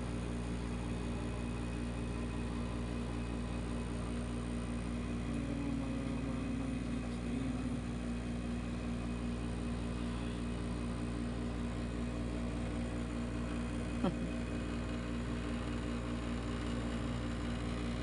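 Steady machine hum with a brief click about fourteen seconds in.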